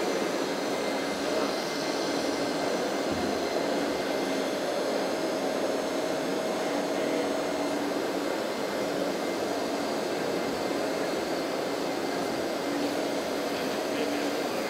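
Hydraulic pump of a radio-controlled Liebherr 924 wheeled excavator model, a steady whirring hum that comes and goes as the log grapple arm is worked, over a constant background hall din.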